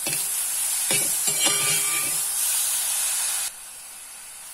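Grated gooseberry and tempering sizzling in ghee in a metal pan while a steel spoon stirs in chilli powder and turmeric, scraping against the pan several times in the first couple of seconds. The sizzle cuts off abruptly about three and a half seconds in.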